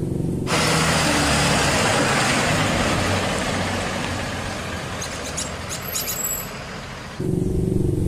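Full-size school bus pulling away: a rushing hiss of engine and road noise that starts suddenly, then fades steadily as the bus drives off.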